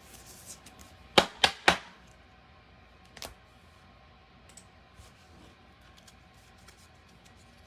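Three quick, sharp clicks about a second in, then a single weaker one near three seconds and a few faint ticks, from baseball cards and their packaging being handled and set down on a table.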